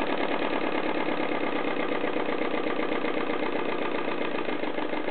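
IMP Tornado V-4 compressed-air expansion model engine running steadily with a fast, even beat. It is running on low air pressure, about 2.5 psi, close to where it would cut out.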